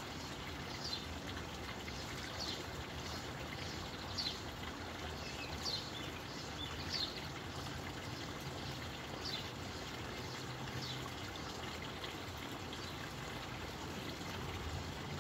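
Water trickling and pouring steadily into a garden pond, with a bird's short high falling chirps repeating every second or two.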